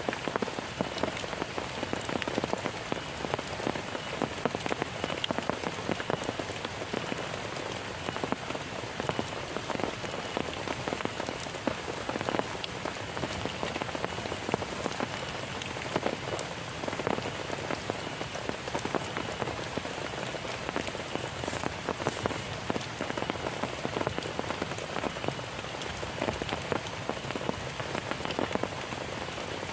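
Heavy rain falling steadily, a dense hiss full of many separate drop hits.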